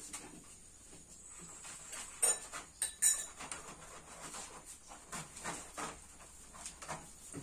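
A knife cutting and scoring through the rind of a pomelo: a run of short scratching, crackling strokes, with two sharper snaps about two and three seconds in.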